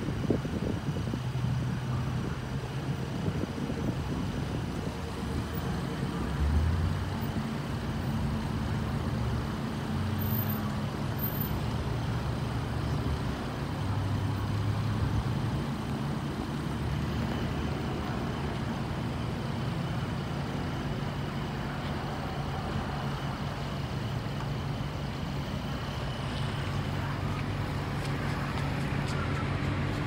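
Steady low hum of vehicle engines running and road traffic, the engine tones shifting in pitch now and then.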